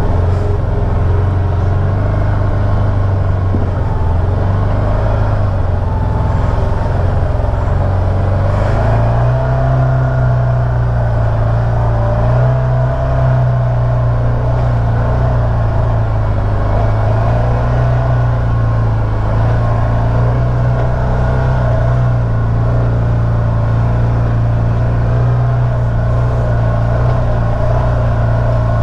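Can-Am Maverick Sport 1000 side-by-side's Rotax V-twin engine running steadily, heard from the driver's seat. Its pitch rises a little about nine seconds in and holds there.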